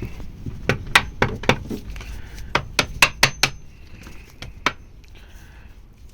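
Hammer striking metal in quick sharp taps, about ten blows in bunches with a short metallic ring, knocking out the staked divot that locks the clutch boss nut on a Honda ST1100 engine.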